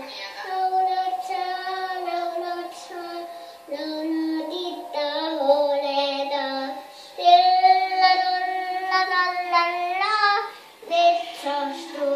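A toddler girl singing a children's song on her own, in held notes. The loudest is a long note from about seven seconds in that rises in pitch near its end.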